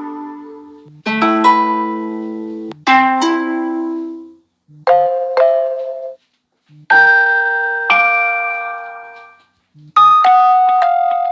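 Samsung Galaxy S22 notification tones previewed one after another: five short melodic chimes, each starting sharply and ringing down, about two seconds apart.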